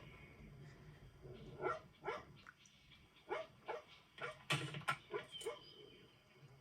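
A dog barking in a string of short, sharp barks, about nine in all, bunched most closely in the middle of the stretch.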